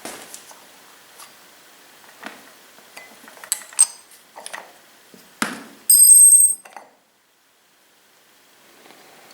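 Small steel chainsaw clutch parts and tools clicking and clinking as the clutch is taken off, with a loud ringing metallic clink about six seconds in.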